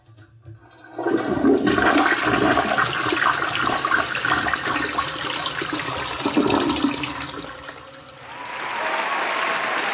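Toilet flushing: a few faint clicks, then loud rushing, gurgling water for about seven seconds that dies away. Applause rises near the end.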